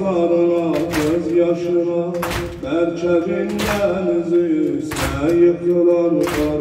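A man chants a Shia mourning elegy in a sustained, wavering voice. Over it, the congregation strikes their chests in unison: five loud slaps, about one every 1.3 seconds.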